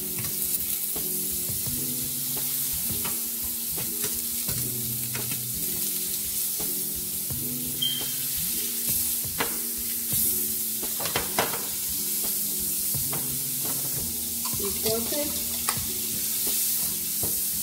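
Butter melting and sizzling in a hot frying pan, a steady hiss, with a few clicks and scrapes of kitchen utensils against the pan and bowl. Soft background music with a slow melody plays underneath.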